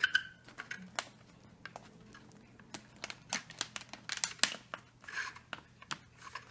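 Hands handling a homemade model rocket as its top cap is fitted on over the packed parachutes: scattered sharp clicks, scrapes and crinkling, busiest about three to four and a half seconds in.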